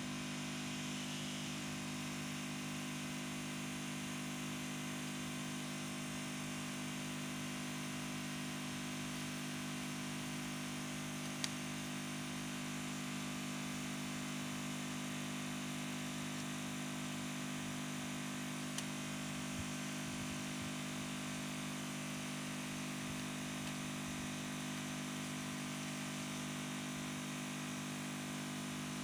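Steady low hum under an even hiss, with one sharp click about eleven seconds in and a fainter click near nineteen seconds.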